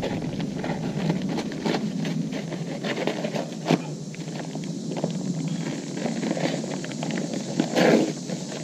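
Scraping and gritty patter of work with dry concrete mix in a mixing tub, with many small clicks and a few sharper knocks, one a little before four seconds in and another near the end.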